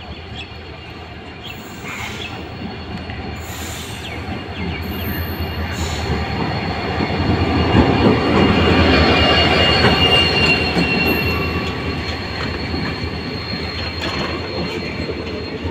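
WDG4D diesel-electric locomotive running as it hauls a passenger train slowly into the station, its two-stroke EMD engine getting louder as it draws near and loudest as it passes, about eight to ten seconds in. After it, the coaches roll past with a high metallic squeal from the wheels and brakes as the train slows to a stop.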